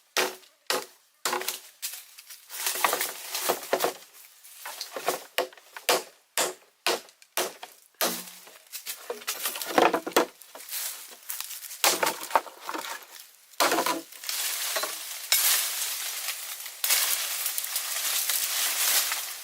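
Wood being chopped with quick, sharp, repeated blows, about two or three a second at first, giving way in the second half to longer stretches of rustling, scraping noise.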